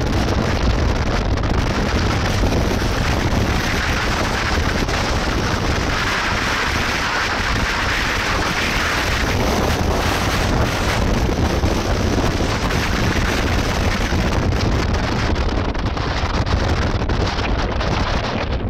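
Wind rushing over the microphone with the steady rumble of a moving vehicle on the road.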